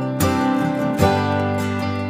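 Background music: a strummed acoustic guitar, chords ringing on between two strums about a second apart.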